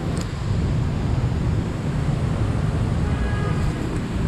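Steady street traffic noise dominated by a dense low rumble, with faint brief tones about three seconds in.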